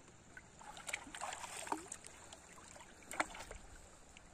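Hands sloshing and splashing in shallow seawater while groping in the sand for clams. The splashing is busiest in the first two seconds, with one sharp click a little after three seconds.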